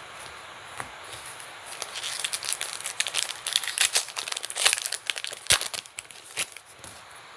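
Wrapper of a baseball card pack being torn open and crinkled, a dense crackling for a few seconds, with a single sharper knock about five and a half seconds in.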